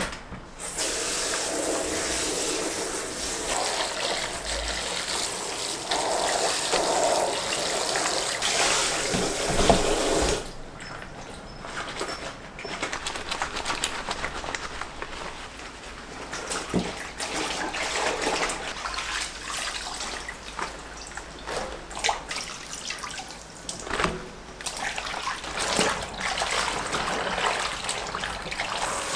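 Kitchen sink tap running onto rubber kitchen gloves as they are rinsed and scrubbed in a plastic basin of soapy water. A steady flow of water for about the first ten seconds, then quieter sloshing and splashing as the gloves are worked in the basin.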